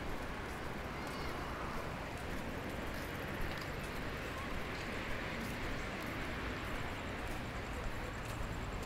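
Steady city street background noise, with a few faint clicks of footsteps from someone walking.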